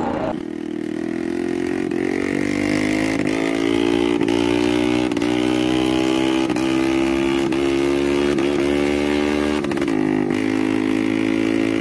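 Engine of a custom 'extreme' Vespa scooter running on the road. Its note climbs in pitch over the first few seconds, then holds steady with small regular wobbles.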